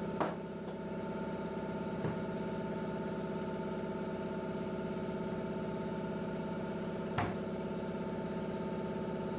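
Air compressor running steadily with an even pulse, refilling its tank for a pneumatic stapler. A few short knocks sound over it.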